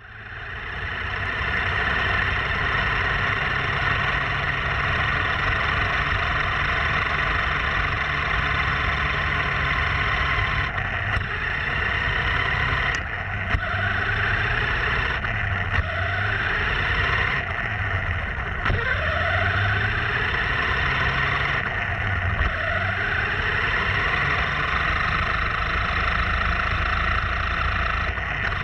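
RC monster truck driving, its motor and drivetrain running steadily with tyre noise, broken by a few brief dips and clicks in the middle.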